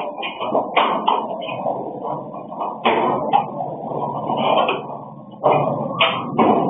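Plastic gallon water jugs knocking and bumping as they are handled in a pickup's bed, several separate knocks over steady background noise.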